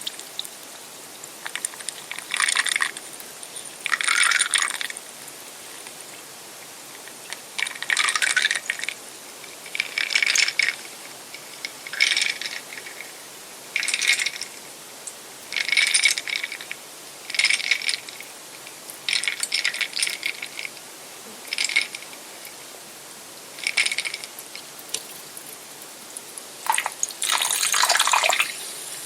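Carbonated soda fizzing with a steady hiss, broken by short, louder bursts of fizz roughly every two seconds, the longest near the end.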